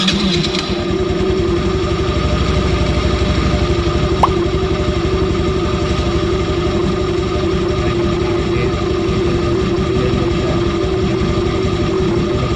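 Honda Dio 2021 scooter's small single-cylinder engine idling steadily, just after being started.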